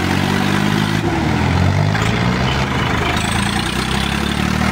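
Diesel tractor engines running at low revs. The engine note dips and picks up again about a second in.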